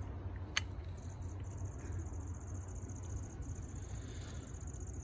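Handling noise from an M4A1 rifle being turned over in the hands, with one sharp click about half a second in. Underneath are a steady high-pitched insect buzz and a low rumble.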